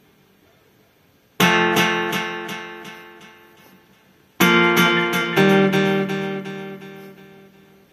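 Recorded music: acoustic guitar chords strummed and left to ring out. After a near-silent first second or so, a chord comes in and fades away, then another group of strums about three seconds later, also fading.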